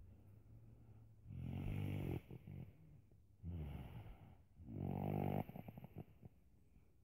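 A little boy snoring in his sleep: three snoring breaths, the second and third close together.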